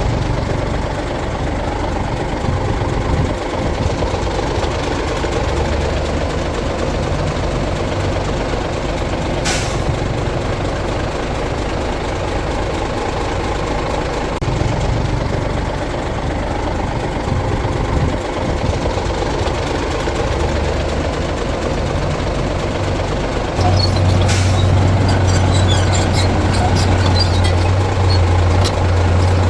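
Heavy diesel earthmoving machinery running steadily, with a short sharp hiss twice, about ten seconds in and again near the end. Near the end an engine grows louder with a deeper steady drone.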